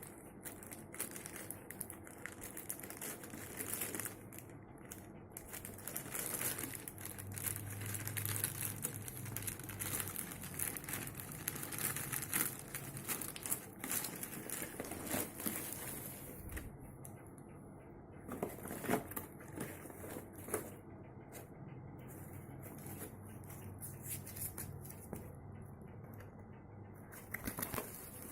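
Hair dryer packaging being handled and opened by hand: steady crinkling, rustling and tearing of the box and wrapping, with small clicks and scrapes throughout.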